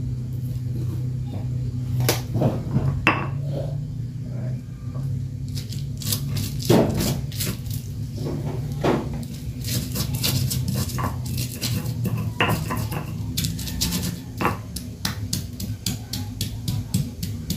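Stone mortar and pestle (Indonesian cobek and ulekan) knocking and clacking irregularly as chillies, garlic and shallots are crushed, with a few spoon clinks against a glass jar at first. A steady low hum runs underneath.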